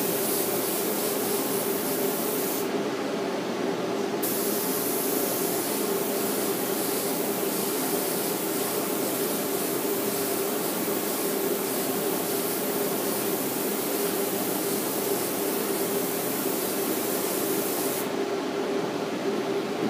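Compressed-air spray gun hissing steadily as it sprays stain, with a steady hum beneath. The highest part of the hiss cuts out briefly about three seconds in, and again near the end.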